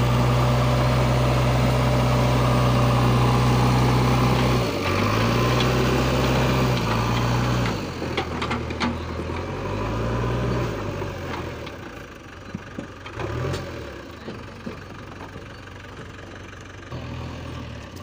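JCB 3DX backhoe loader's diesel engine running steadily and loud, then dipping and rising in pitch twice as the machine is worked. It grows quieter in the second half, with a few sharp clicks and knocks.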